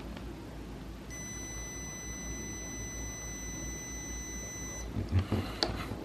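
Testo 770-3 clamp meter's continuity beeper sounding one steady high beep for nearly four seconds, starting about a second in: the test leads across the fuse holder and fuse read a closed circuit. A few short knocks follow near the end.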